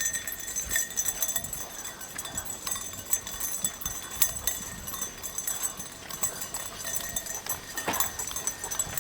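Footsteps of a person walking with several dogs, a steady run of short steps and clicks.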